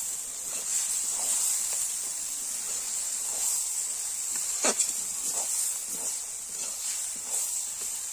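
Flat metal spatula scraping and stirring soya chunks in a thick masala in a metal kadai: a string of short scrapes, the loudest about halfway through, over a steady high hiss.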